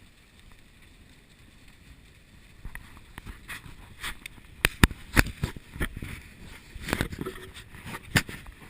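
An irregular run of sharp knocks and clatters, starting about three seconds in, with the loudest about halfway through and one more near the end.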